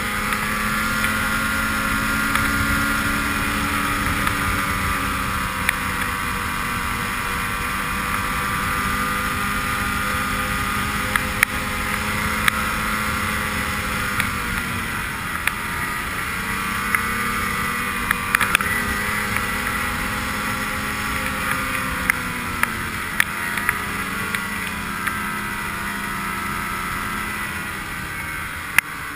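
Ski-Doo snowmobile engine running at trail speed, its pitch easing off and climbing back a few times with the throttle, heard from on board with scattered sharp clicks.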